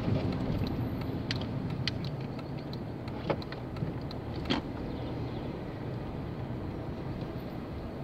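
Small car driving slowly, heard from inside the cabin: a steady low hum of engine and tyres, with a few sharp clicks or knocks, the loudest about three and four and a half seconds in.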